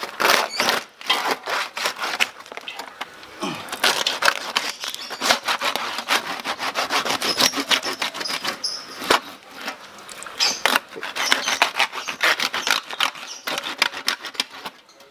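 Hand saw cutting through a whole roast suckling pig, rasping through the crisp crackling skin in quick back-and-forth strokes.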